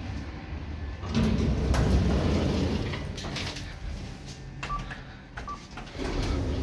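Kone Monospace elevator doors sliding open with a rumble about a second in. Later come two short high beeps as a floor button in the car is pressed.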